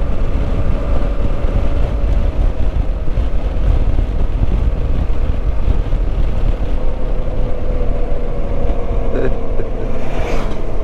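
Motorcycle engine running at a steady cruise, with heavy low wind rumble on the microphone; the engine note eases down a little over the stretch. A short, sharper sound comes near the end.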